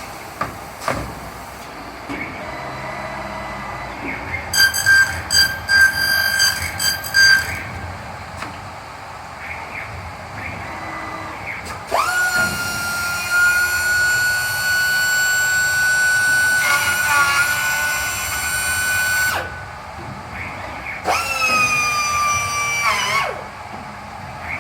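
PVC window corner-cleaning machine running its high-speed cutter motors. First comes a short pulsing whine, then a steady high whine that holds for about seven seconds and cuts off. A shorter whine near the end sags in pitch as it stops, all over a steady background of machine noise.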